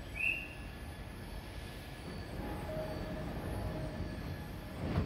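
E217 series commuter train's doors closing while it stands at the platform, over a steady rumble. A short high tone sounds at the start and a dull thump comes near the end.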